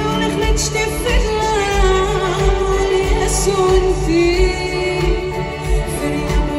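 Live band with a string section playing a Moroccan-style pop song: a steady drum beat under a winding, gliding melody line.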